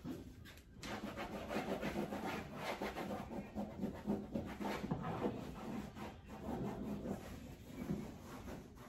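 A cloth rubbing and wiping across a granite kitchen backsplash and countertop in quick, irregular strokes.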